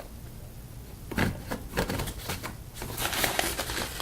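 Close handling noises: a few sharp clicks about a second in, then a denser crinkling and crackling in the last second.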